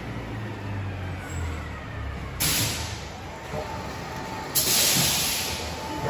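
Silage packaging machine running, its conveyor and motors humming steadily, with sudden loud bursts of compressed-air hiss about two and a half seconds in and again about four and a half seconds in, the second joined by a steady thin whine.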